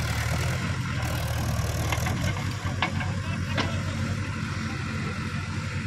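Heavy diesel engine idling with a steady low rumble, with a few short sharp knocks about three seconds in.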